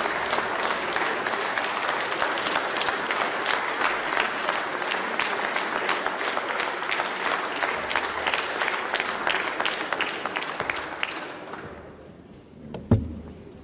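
Large audience of parliamentarians applauding, dense clapping that dies away about two seconds before the end. A single sharp thump follows just after it.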